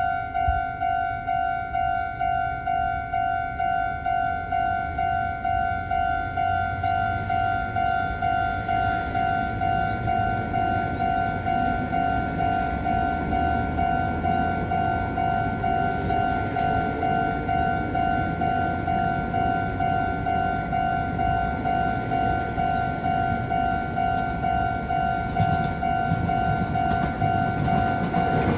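Japanese railway level-crossing alarm ringing its steady, evenly repeated two-tone ding. A train's rumble runs beneath it and grows louder near the end.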